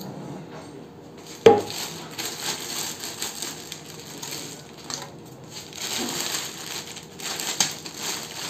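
Cardboard packaging and a plastic bag being handled during unpacking: one sharp knock about a second and a half in, then irregular crinkling and rustling of plastic and cardboard.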